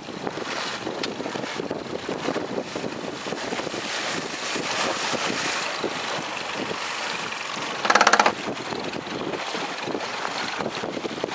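Wind buffeting the microphone over choppy sea water. About eight seconds in, a short, loud pitched tone sounds for under half a second.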